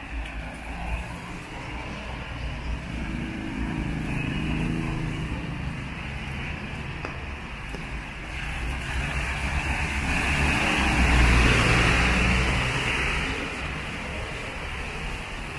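Road traffic on a wet street: vehicles passing with a hiss of tyres on the rain-soaked road over a steady low rumble. One vehicle passes close about eleven seconds in, the loudest moment.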